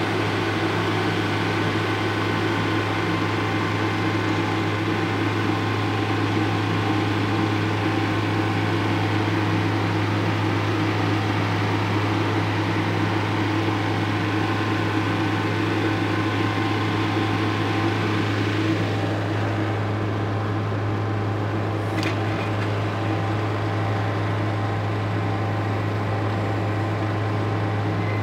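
The 44 hp turbo diesel Kubota engine of a Carlton SP4012 stump grinder running steadily at high revs, its cutting wheel engaged and spinning freely with no load. One sharp click about three-quarters of the way through.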